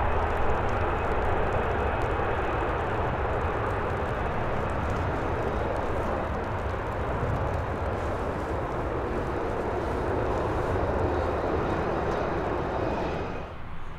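Jet engine noise from a landing Boeing 787-9: a loud, steady rush over a low rumble, with a faint high whine at times. It cuts off suddenly near the end.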